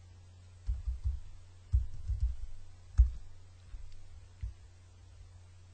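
Computer keyboard keystrokes in a few short clusters, the loudest about three seconds in, over a steady low hum.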